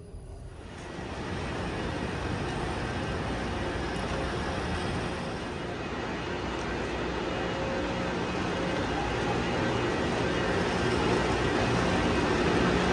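Steady running hum of Haramain high-speed trains standing at the platform, a rushing sound that grows slowly louder, with a steady low hum coming in over the second half.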